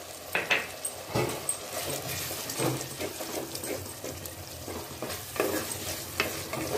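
Wooden spatula stirring and scraping shallots, tomatoes and freshly added ginger-garlic paste in a clay pot, with several short scrapes against the pot over a steady sizzle of frying in oil.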